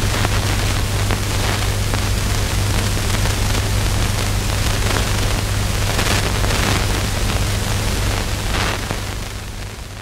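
Steady hiss with scattered faint crackles over a low steady hum, like the surface noise of an old film soundtrack, fading away near the end.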